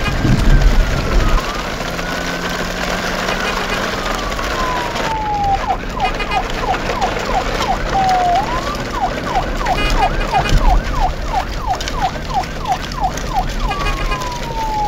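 An electronic siren sounding continuously. It makes slow rising-and-falling wails at first, switches about five seconds in to a fast yelp of several sweeps a second, and returns to a slow falling wail near the end.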